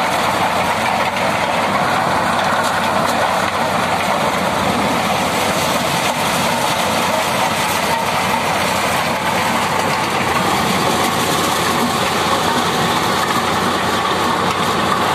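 A tractor-powered maize thresher running steadily under load, driven by a Swaraj 744 FE tractor's three-cylinder diesel engine, with shelled corn pouring from the chute. The noise is loud and even, with no let-up.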